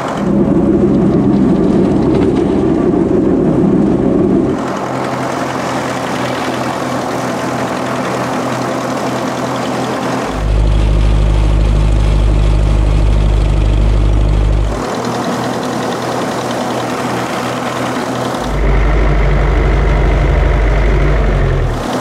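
Massey Ferguson 35 tractor engine running steadily under load, driving a three-blade PTO rotary mower through tall, wet grass; its frost-cracked cylinder head is patched with cold metal. The sound shifts abruptly four times, alternating between a lighter running sound and a louder, deeper drone.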